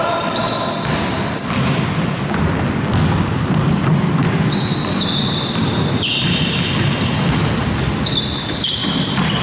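Basketball game noise in a gym: sneakers squeaking on the court again and again, the ball bouncing, and players' voices echoing in the hall.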